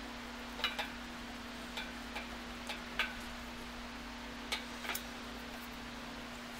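A handful of light, irregular clicks and taps as small metal parts of a safety switch and its bracket are handled and fitted together, over a steady low hum.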